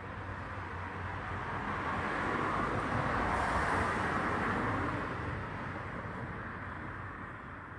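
A passing car: road noise that swells to a peak about halfway through and then fades away, over a steady low hum.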